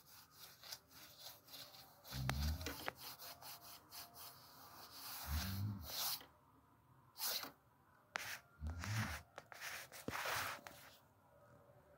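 Scratchy rubbing and rustling in short bursts, with three soft low thuds spread through it.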